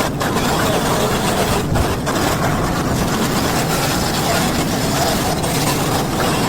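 A petrol engine running steadily at working speed, heard as a loud, continuous drone.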